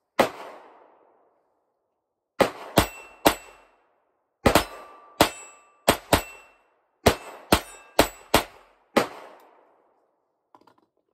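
Smith & Wesson Victory 22 pistol firing .22 LR rounds semi-automatically: thirteen sharp cracks at an uneven pace of about one to two a second, several followed by a brief metallic ring. Faint clicks come near the end as the pistol is lowered.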